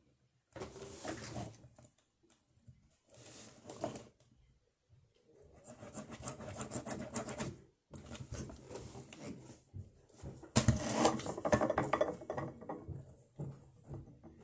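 Scratching and rubbing on paper close to the microphone, in several bursts of quick strokes separated by short pauses, the loudest near the end.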